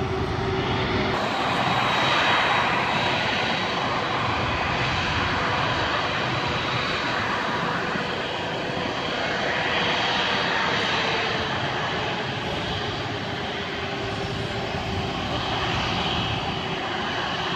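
Jet engines of a twin-engine widebody airliner running at taxi power: a steady rush of exhaust with a high whine on top, swelling a little and easing back a few times as the plane turns toward the listener.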